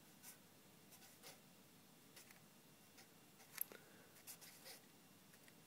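Faint scratching of a marker pen writing on paper: a handful of short strokes, the loudest about two-thirds of the way through.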